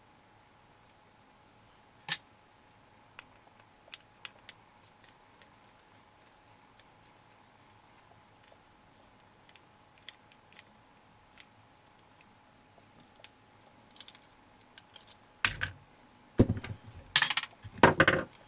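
Light scattered clicks and ticks of a screwdriver and small plastic parts being handled while screws are taken out of an RC car's motor and spur gear assembly, then a run of louder knocks and clatter in the last few seconds.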